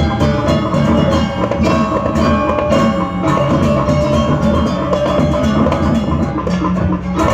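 Balinese gamelan playing a loud, dense passage in the Bebonangan style: rapid interlocking strokes on bronze gong-chimes and other percussion, with a brief drop just before the end.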